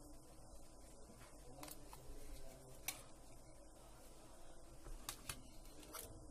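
A few sharp little clicks of small plastic and metal phone parts being handled, two close together about five seconds in, as the display module of a Nokia TA-1034 is worked loose from its circuit board.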